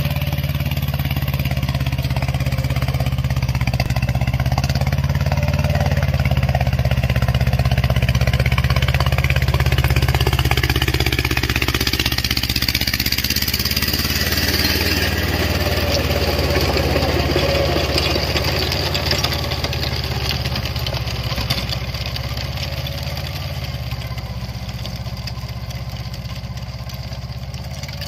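Mahindra Jivo 305 mini tractor's diesel engine running steadily while driving a Shaktiman rotavator that tills the soil. The sound grows gradually fainter over the last third as the tractor moves away.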